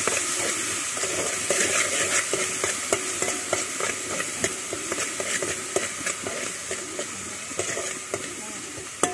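Ginger-garlic paste, curry leaves and dried red chillies sizzling in hot coconut oil in an aluminium pot, with a metal spoon stirring and clicking against the pot. The sizzle is steady and eases off a little near the end.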